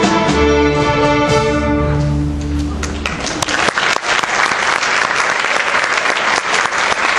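Student string orchestra with violins and double bass ending a piece on held notes that die away about three seconds in, followed by the audience applauding.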